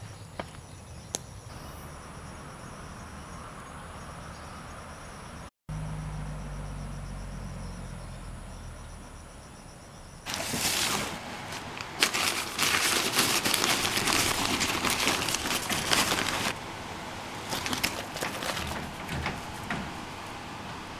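Insects trilling steadily in the background. Later comes about six seconds of loud crackling rustle from dry cut grass and plant material being handled, then a few scattered crackles.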